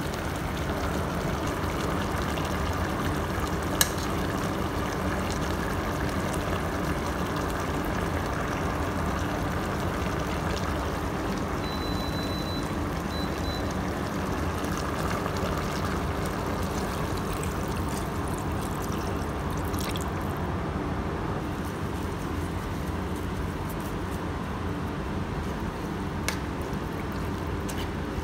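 Chicken tinola broth simmering in a pot on an induction cooker, a steady bubbling hiss with the cooker's fan humming under it. About halfway through, a short electronic beep sounds as a control button is pressed, with a few light clicks elsewhere.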